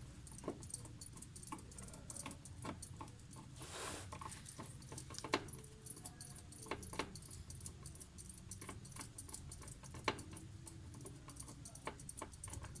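Faint, scattered clicks and light metallic taps from hands working a screwdriver and small parts while fitting a washing machine's actuator.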